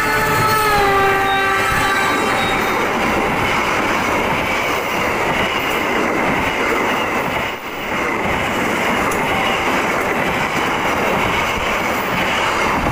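Express passenger train passing close by at speed. The diesel locomotive's horn sounds and drops in pitch as it goes past in the first couple of seconds. Then the coaches roll by with steady rail noise and wheel clatter.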